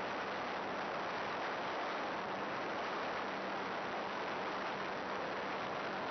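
Steady, even hiss with a faint low hum underneath, unchanging throughout: the noise track of an FPV flight recording from a model plane.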